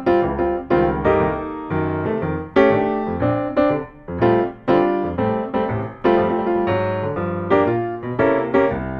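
Background music: a piano playing a flowing melody over chords, note after note struck and left to fade.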